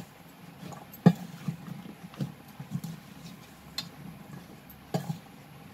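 Metal spoon tossing flour-coated okra pieces in a stainless steel bowl: soft, irregular scraping and rustling, with a sharp clink of spoon on bowl about a second in and another near the end.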